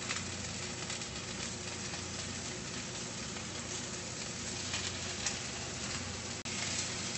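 Fat sizzling in a hot frying pan: a steady hiss with fine crackle.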